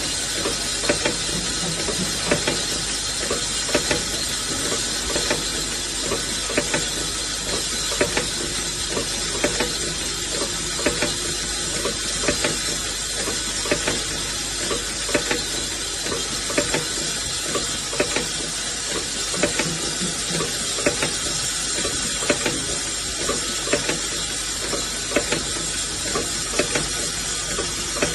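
Automatic induction brazing machine running: a steady hiss with a thin high tone, broken by regular mechanical clicks and knocks from its moving fixtures, often in pairs about every second or so.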